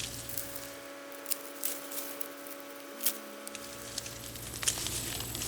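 Rustling of corn plants being handled, with a few sharp clicks and snaps scattered through it.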